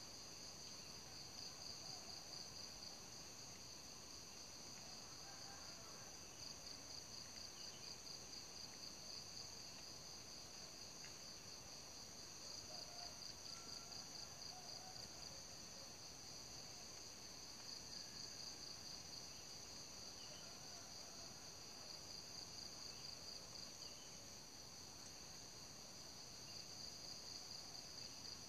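Night insects trilling steadily in a faint, continuous high-pitched chorus of two overlapping trills, one with a fast, even pulse.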